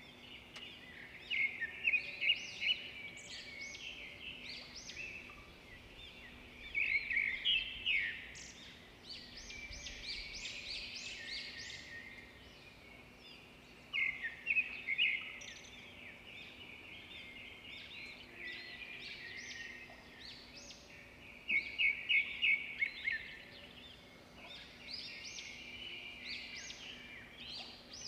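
Birds chirping in quick, repeated runs that come in louder clusters every several seconds, over a faint steady hum.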